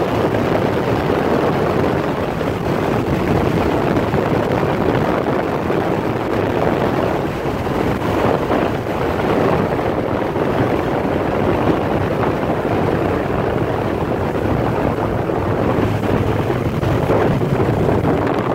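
Steady rush of wind on the microphone of a moving motorcycle, mixed with its engine and road noise at riding speed.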